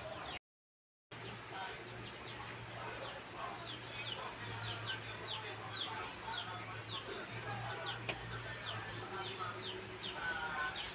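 Chickens peeping: short falling chirps repeating about twice a second over a steady low hum. The sound cuts out completely for under a second near the start.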